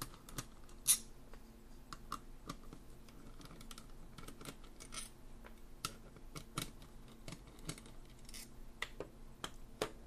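Irregular small clicks and taps of a Weiser K937 deadbolt's metal lock case and a screwdriver being handled as the case screw is undone, the sharpest click about a second in, over a faint steady hum.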